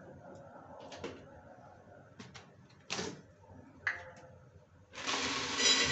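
Peanuts roasting in a dry iron kadai, with a few scattered sharp clicks. About five seconds in, a loud steady hiss starts suddenly.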